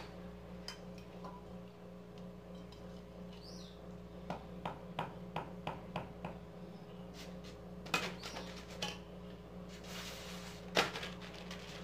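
Small clicks and knocks from handling metal pliers and an aerosol can of lubricant, coming in a quick run in the middle, with a short hiss near the end.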